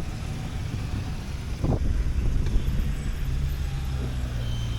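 BMW R1150RT's boxer-twin engine idling with a steady low rumble. A brief vocal sound comes about two seconds in.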